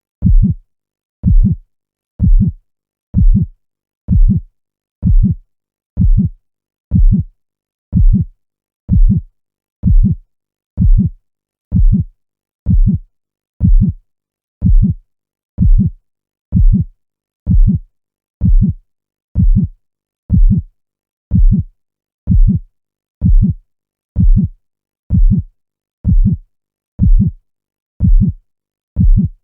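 Slow, steady heartbeat, about one beat a second. Each beat is a deep thud, with quiet between beats.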